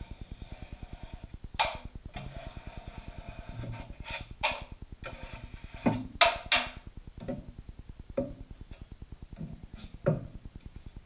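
Drywall taping knife working setting-type joint compound: the blade scraping mud from the pan and the wall, with about eight sharp clacks as it knocks against the mud pan's edge.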